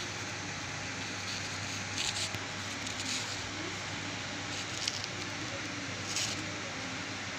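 Steady background hiss with a low hum, broken by a few short rustles as a hand brushes among pumpkin vine stems and leaves.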